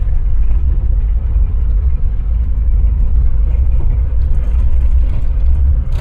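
Volkswagen Kombi van driving, a steady low rumble of engine and road noise.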